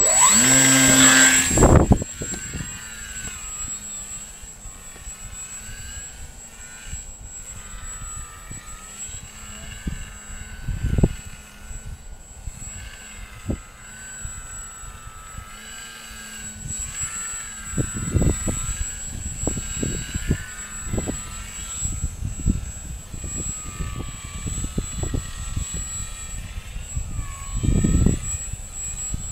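Motor and propeller of a small radio-controlled model plane whining, the pitch wavering up and down with throttle, loud in the first two seconds and then further off. Strong wind buffets the microphone in low gusts several times.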